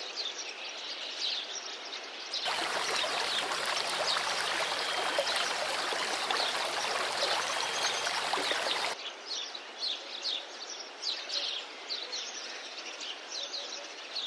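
Small birds chirping repeatedly. From about two and a half seconds in until about nine seconds, a louder, steady rush of a small stream running over rocks covers them. It stops abruptly and the chirping returns.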